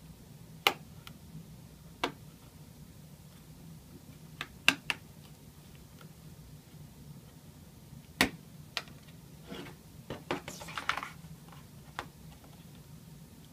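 Plastic retaining clips on the edge of an HP ElitePad 900 tablet popping loose as the front panel is pried off by hand: a series of sharp clicks, three close together about halfway through. A stretch of scraping and rustling plastic follows near the end, then one more click.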